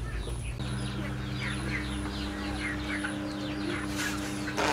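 Small birds chirping: many short, quick downward chirps, several a second, over a steady low hum that starts about half a second in, with a click near the end.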